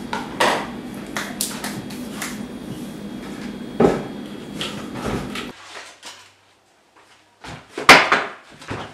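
Dishes and kitchenware clinking and knocking as they are handled at a kitchen counter, with one heavier knock about four seconds in. The background then cuts off suddenly, and a few sharp knocks follow near the end.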